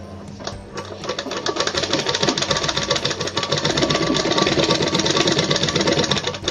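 Domestic sewing machine stitching along the folded edge of a saree, a rapid even run of needle strokes that starts about half a second in and builds up speed over the next second or so before running steadily.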